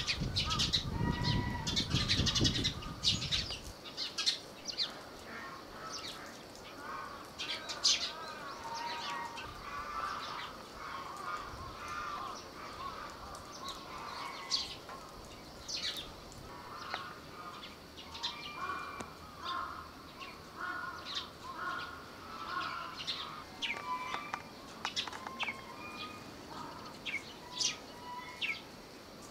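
Small birds chirping, with many short, high calls scattered throughout over lower wavering calls; a low rumble in the first three seconds or so.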